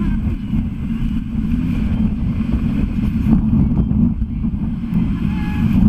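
Steady low rumble of city street traffic, buffeted by wind on the microphone.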